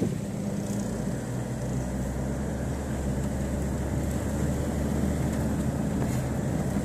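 A car driving along a dirt track, heard from inside the cabin: a steady low engine drone with tyre and road rumble.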